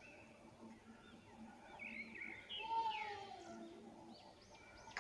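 Faint birds chirping repeatedly, with a louder stretch of gliding calls and a short trill about two to three seconds in.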